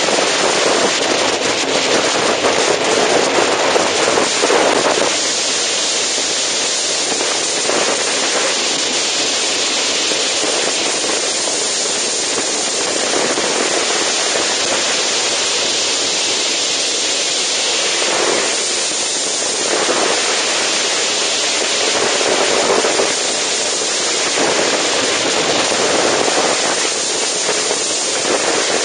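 Heavy wind noise buffeting a motorcycle-mounted camera's microphone at road speed, crackling in places, with the motorcycle's engine faintly audible underneath.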